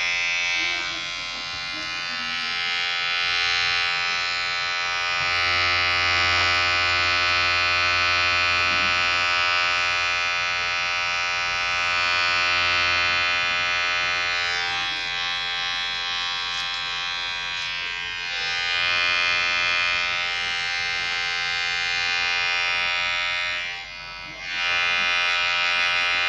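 Electric hair clipper buzzing steadily with a vibrating hum, its loudness swelling and easing every few seconds, with a brief dip near the end.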